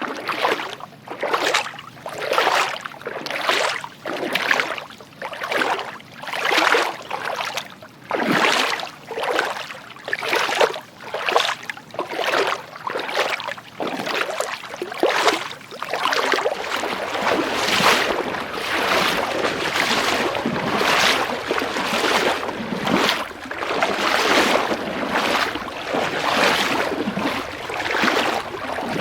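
Footsteps wading through water, each step a splash at about one a second. About halfway through, the splashes run together into near-continuous sloshing.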